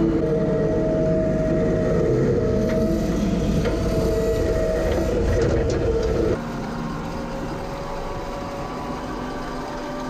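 Diesel engine of a farm loader running steadily while it scoops bed-pack manure into a manure spreader, with a few knocks about three to five seconds in. About six seconds in, the sound cuts to a quieter, different engine running steadily: the tractor pulling the spreader across the field.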